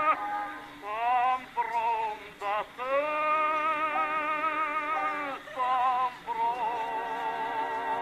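Old phonograph record of an operatic tenor singing with strong vibrato, thin-sounding, in several short phrases that end on a long held note.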